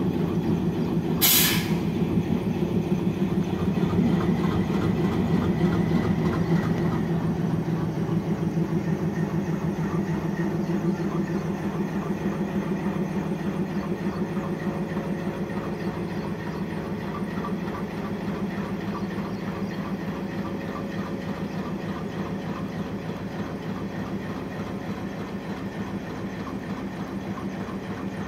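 WDM-3D diesel-electric locomotive passing, its ALCO 251 sixteen-cylinder diesel engine running with a rapid, steady beat, loudest a few seconds in and then slowly fading as it moves away. A brief sharp hiss about a second in.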